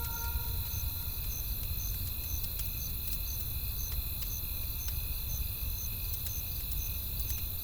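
Campfire crackling with scattered sharp pops over a steady low wind rumble, while crickets chirp about twice a second.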